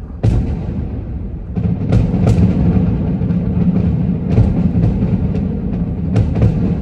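Aerial fireworks shells bursting in quick succession: a continuous deep rumble of booms, with sharp cracks standing out about two seconds in and again several times in the second half.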